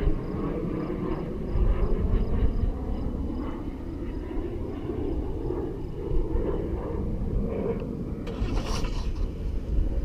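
Suzuki DR-Z400SM supermoto's single-cylinder four-stroke engine running at low speed, heard from a helmet-mounted camera under a heavy low rumble of wind on the microphone. A brief rush of noise comes about eight seconds in.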